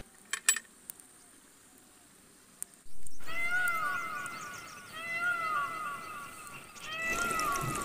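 A few sharp clicks in near silence, then from about three seconds in an animal gives a run of short, arching, mewing calls, several a second in clusters, over faint outdoor background.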